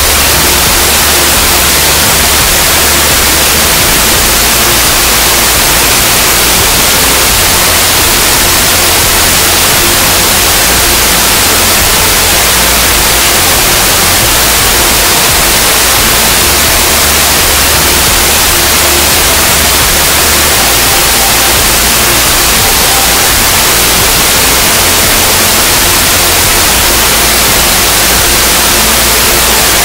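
Loud, steady hiss of white noise like static, spread evenly from low to high with no change in level and no other event.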